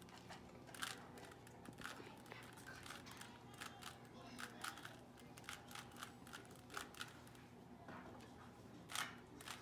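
Rubik's cube being turned by hand: faint, irregular plastic clicks, one or two a second, with a louder click near the end.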